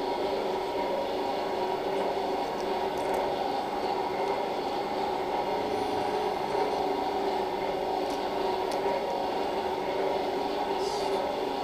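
Steady mechanical drone of operating-room equipment running, even and unchanging, with a few faint clicks.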